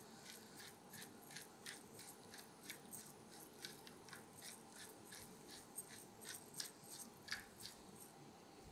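Hand-twisted pepper mill grinding pepper over a pan: a faint run of crunching ticks, about three a second.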